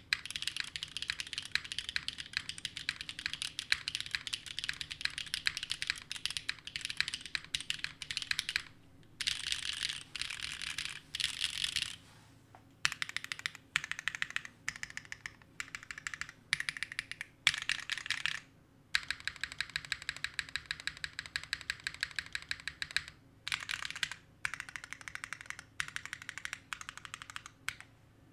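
Typing on a Neo60 Core mechanical keyboard fitted with Gateron Sage linear switches: fast runs of keystrokes and bottom-outs, broken by a few short pauses.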